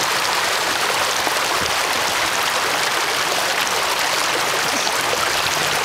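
Floodwater about ten inches deep rushing across pavement, a steady rushing of fast-moving shallow water.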